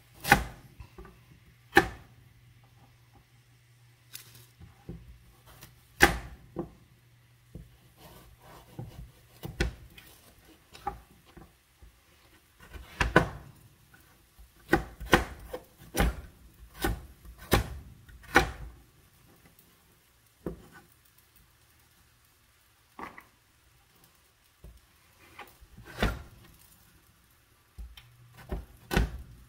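Chef's knife chopping a raw carrot on a plastic cutting board: sharp irregular knocks of the blade hitting the board, some in quick runs and some with pauses of a few seconds between cuts.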